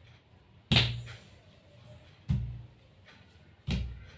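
Three sharp thumps, evenly spaced about a second and a half apart, each dying away with a short low boom.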